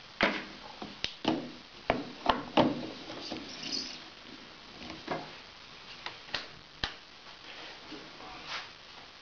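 A series of sharp, unevenly spaced clicks and knocks from a Vitek VT-1513 espresso machine's portafilter and tamper being handled: the tamper set down on top of the machine and the metal portafilter fitted and twisted into the group head.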